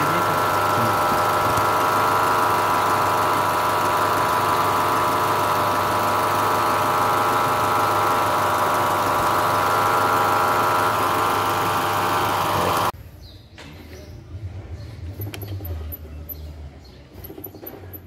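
Car engine running with a loud noise from a damaged alternator, a steady whine over the engine sound. It cuts off suddenly about thirteen seconds in, as the engine stops, leaving only faint clicks.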